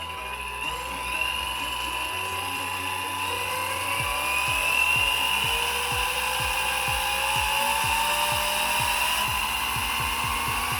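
Brushed electric motor and gear drivetrain of a Tamiya TT01 RC car running under throttle, a whine climbing slowly and steadily in pitch over several seconds, with a regular light ticking as it speeds up. It runs smoothly with very little vibration.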